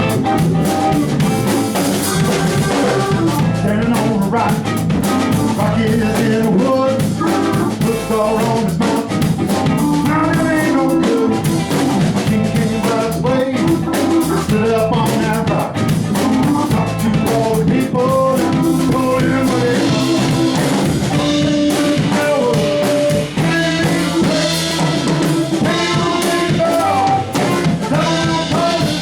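Band music with a drum kit playing a steady beat under pitched instruments.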